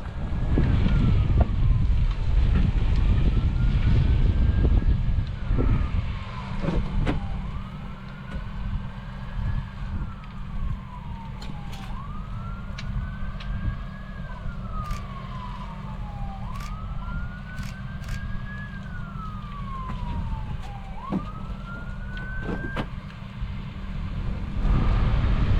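Emergency vehicle siren on a slow wail: six rise-and-fall cycles about four and a half seconds apart, the last one cut short near the end. A low rumble sits underneath and is loudest for the first several seconds.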